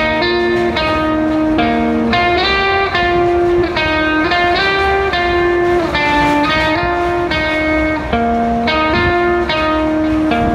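Instrumental background music led by guitar, a melody of notes changing about twice a second over a steady backing.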